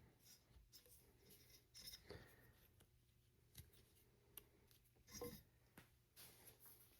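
Faint, scattered clicks and short rubbing sounds: a rubber strap wrench being fitted and turned on an air rifle's barrel shroud.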